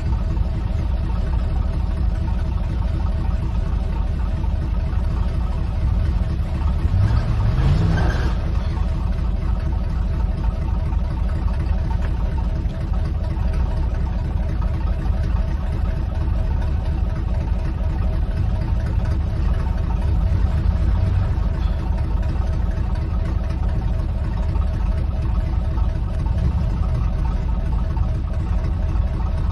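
Pickup truck engine running at low speed over a rough trail, heard from the truck's bed, with a brief rising rev about seven seconds in.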